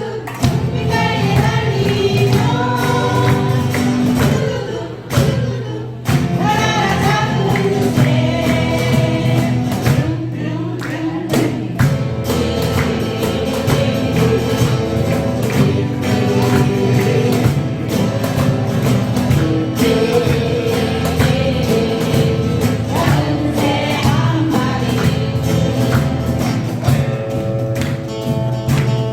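Acoustic guitars strummed as accompaniment while singers sing a song together, a live group performance of acoustic guitars and voices.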